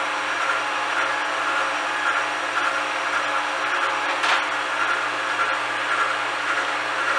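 Electric kitchen machine running steadily with its lid closed, beating butter, sugar and egg until fluffy. There is a brief knock about four seconds in.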